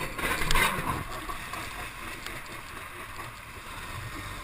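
A jet ski running on the water, its engine a low drone under a steady wash of water and wind hiss, with a louder surge of rushing water about half a second in.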